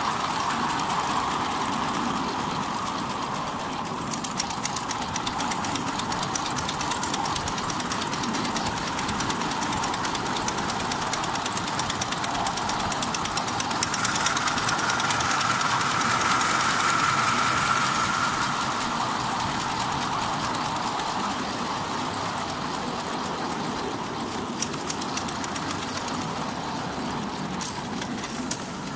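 Miniature live-steam locomotive running with its train of coaches, heard from on board: a steady running rush of wheels on rails, with bursts of rail-joint clicks now and then. It swells louder for a few seconds in the middle.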